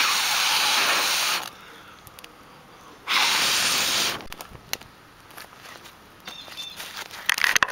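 Two long hissing rushes of breath blown onto smouldering tinder, each about a second long; the fire flares into flame after the second. Light crackling and snapping of burning wet leaves and twigs follows, busier near the end.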